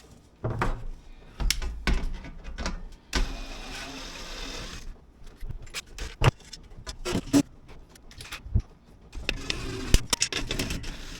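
Drill driver backing out and refitting sheet metal screws in a metal chimney liner section, with a run of the drill lasting about two seconds near the middle. Scattered sharp clicks and knocks of metal parts being handled.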